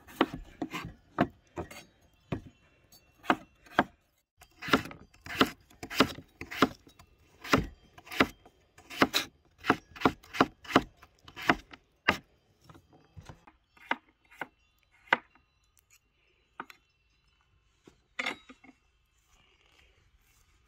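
Chef's knife slicing through a raw peeled potato onto a wooden cutting board: crisp cuts about two a second, each ending in a knock on the board, thinning out to a few scattered strokes after about twelve seconds.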